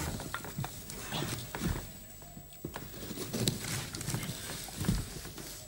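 A man eating with his hands from a bowl: scattered soft taps, rustles and mouth noises of chewing, with no steady tone.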